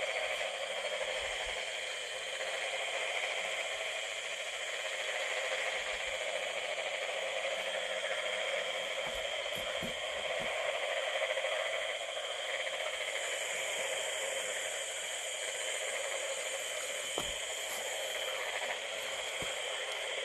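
Steady night chorus of insects in a rice paddy, an even, unchanging sound layered in several high pitches, with a few faint knocks.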